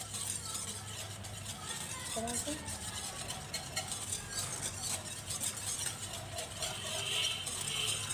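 Wire whisk stirring a thick white sauce in a black nonstick pan, a continuous run of quick scraping strokes against the pan.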